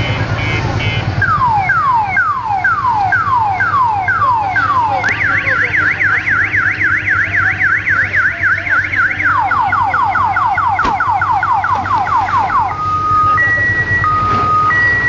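An electronic alarm siren cycling through its tones: falling whoops about twice a second, then a fast warble, then quicker falling sweeps, and near the end a slow high-low two-tone. A truck's engine runs underneath.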